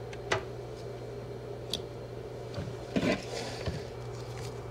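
Cables and plastic connectors being handled: a few sharp clicks and a short rustle, the loudest about three seconds in, over a steady low hum.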